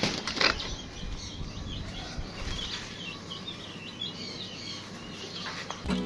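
A short flurry of flapping wings, then a run of quick, high chirps from small aviary birds.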